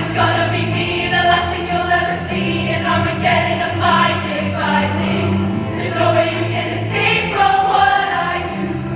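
Women's show choir singing in parts, lyrics audible as sung consonants, over steady low instrumental accompaniment.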